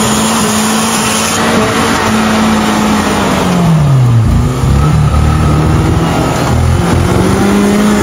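Off-road 4x4's engine held at high revs, dipping sharply about four seconds in and then picking up again.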